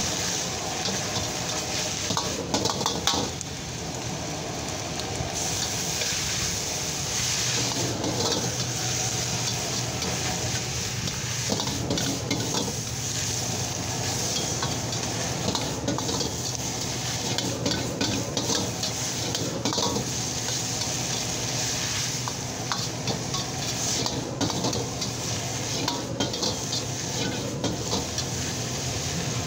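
A metal ladle is scraping and clanking against a wok as shredded cabbage is stir-fried over a high gas flame. Frequent short scrapes and clinks sit over steady sizzling, and a steady low hum sets in a few seconds in.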